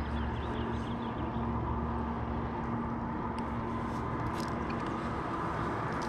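Steady low motor hum with a faint whine that fades about halfway through, and a few small ticks in the second half.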